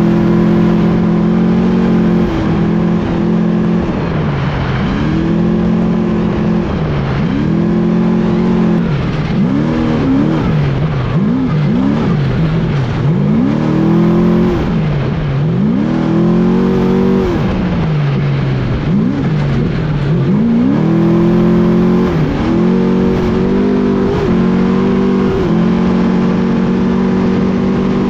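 Trophy truck engine at race speed on a dirt course, revving up and holding, then lifting off and opening up again over and over, with several quick throttle stabs in the middle, over a steady rush of wind and road noise.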